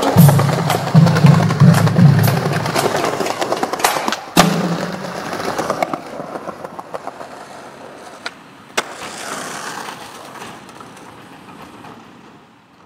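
Skateboard rolling, with sharp clacks of the board; the hardest comes about four seconds in, and two more come near the nine-second mark. Music with a bass line plays under it for the first five seconds, then the rolling fades away.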